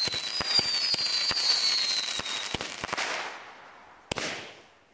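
A 200-gram consumer firework cake (World Class Pyro Magic) firing: a rapid string of sharp pops with a high, slightly falling whistle, dying away after about three seconds. About four seconds in, a single sharp bang.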